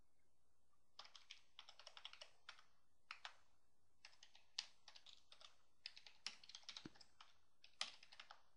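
Faint typing on a computer keyboard: quick runs of keystrokes with short pauses between them, starting about a second in.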